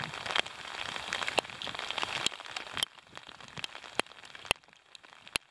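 Rain falling, with sharp, irregular ticks of raindrops striking close to the microphone. The patter thins out about halfway through.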